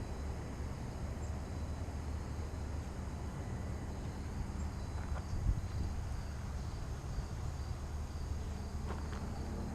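Steady outdoor background: a chorus of crickets or similar insects trilling steadily, over a low rumble of wind on the microphone.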